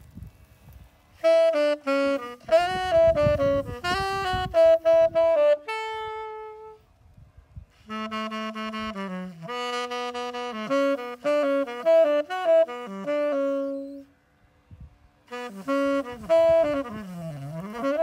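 Unaccompanied tenor saxophone playing slow melodic phrases with pauses between them. A single note is held about six seconds in, and the notes bend up and down near the end.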